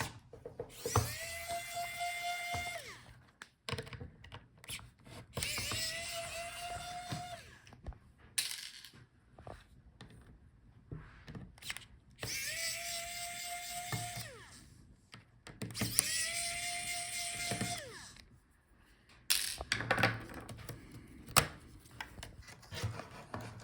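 Electric screwdriver backing out the laptop's hinge screws: four runs of about two seconds each, a steady motor whine that drops in pitch as each run stops. Light clicks and knocks of handling come between the runs.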